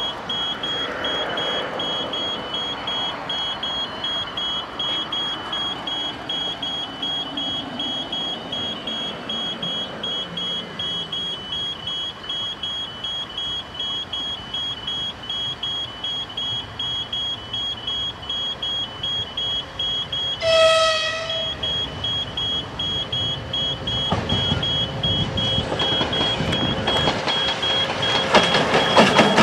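2TE116 twin-section diesel locomotive approaching: one short horn blast about two-thirds of the way through, then its diesel engines and wheels on the rails grow steadily louder as it draws near.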